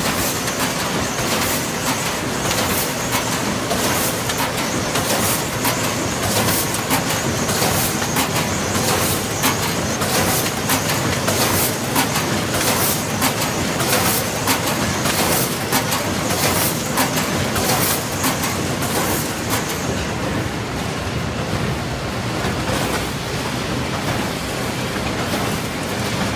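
1992 Kolbus HD150 three-knife book trimmer running inline with its perfect-binding line: a steady mechanical clatter with rapid, repeated clicks. A high whine and the sharpest clicks drop away about twenty seconds in.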